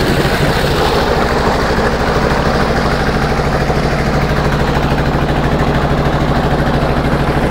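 A tubewell running very loud: its pump engine runs steadily with an even, rapid beat, over the rush of water pouring from the bore.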